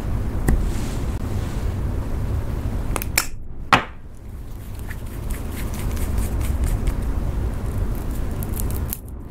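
Plastic lipstick tubes handled close to the microphone, with a few sharp clicks and taps as the lipstick is worked out of its case. Under them runs a steady low rumble.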